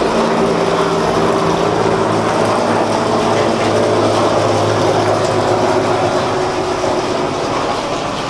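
An engine or motor running steadily with a hum, growing slightly quieter near the end.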